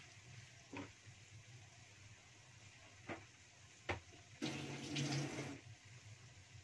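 Stingray pieces simmering in a wok, with a faint steady hiss and a few light clicks. About four seconds in, water gushes for a little over a second, like a tap running.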